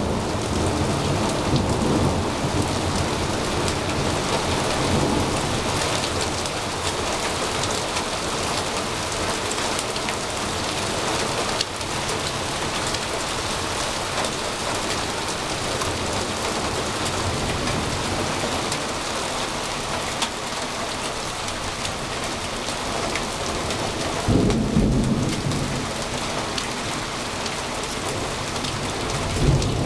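Heavy rain pouring steadily onto roofs, pavement and foliage, with low rumbles of thunder, the strongest about twenty-five seconds in.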